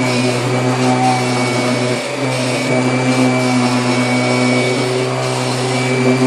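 Kirby Generation 6 upright vacuum cleaner running steadily: an even motor hum with a thin high whine over it.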